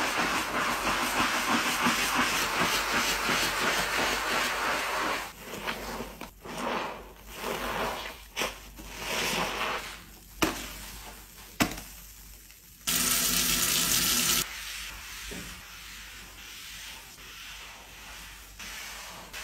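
Sponge scrubbing a foam-covered black kitchen sink: a steady foamy hiss for the first few seconds, then uneven rubbing strokes. About two-thirds of the way in there is a loud, even hiss for about a second and a half, followed by quieter wiping.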